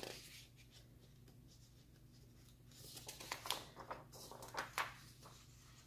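Sheets of printer paper being handled and turned over, with a few faint rustles and slides in the second half.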